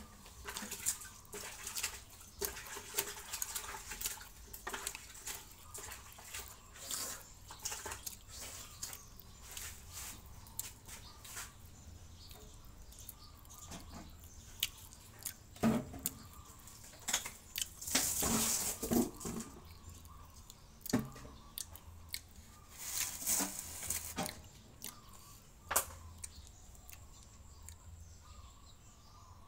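A person eating by hand at close range: chewing and mouth sounds with scattered small clicks of fingers and food against plates, and a few louder short noisy bursts in the second half.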